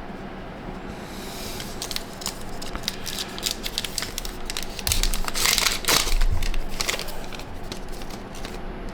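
Crinkling and tearing of a plastic trading-card pack wrapper being opened and handled, loudest a little past halfway.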